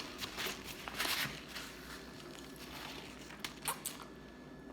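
Quiet mukbang eating noises: light crackling and clicks from fried chicken being handled and eaten, with a couple of sharp ticks about three and a half seconds in.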